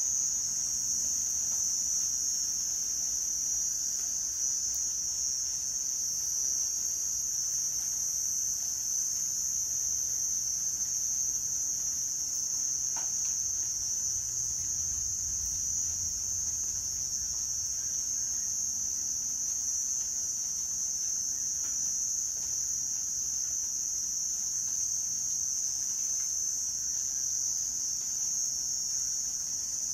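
Chorus of night insects, crickets or katydids, in one steady, high-pitched, unbroken trill.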